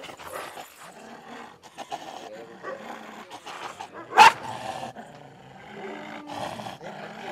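Chained Kombai dog growling with teeth bared at a man reaching towards it, with one sharp, loud bark about four seconds in.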